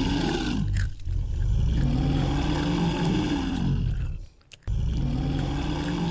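A cow mooing: long, low calls that rise and fall in pitch, three in a row, the middle one about three seconds long.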